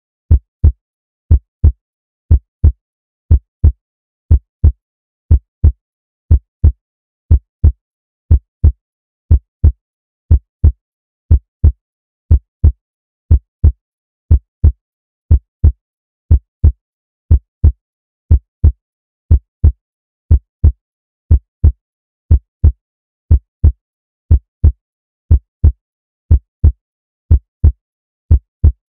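Heartbeat sound effect: a steady lub-dub, two short low thumps repeating about once a second.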